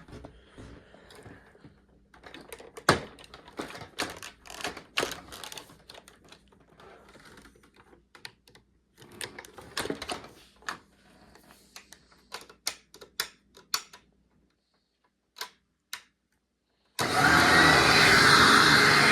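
Irregular clicks and knocks of handling, then near silence with two single clicks; about two seconds before the end, a 1999 Hoover Ultra SP WindTunnel upright vacuum switches on suddenly and runs loudly and steadily.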